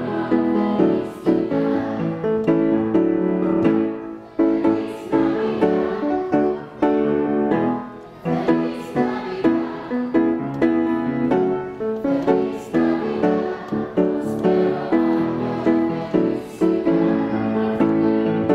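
A youth treble choir singing, accompanied on grand piano, in phrases that swell and fall every second or two.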